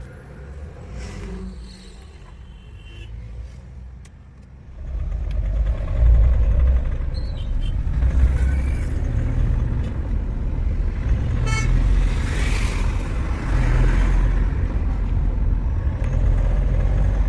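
Mahindra Scorpio's mHawk four-cylinder common-rail diesel engine, fairly quiet at first, then running loudly under load from about five seconds in as the vehicle pulls away. Under load it develops a tak-tak knock, which the mechanic suspects comes from a connecting rod, a seized piston or an injector fault.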